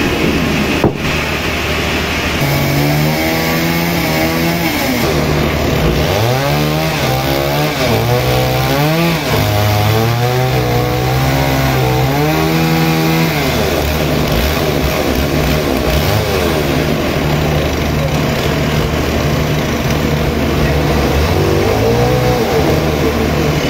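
Sawmill machinery running steadily, with a motor-like whine that rises and falls in pitch over and over for several seconds, then again briefly near the end.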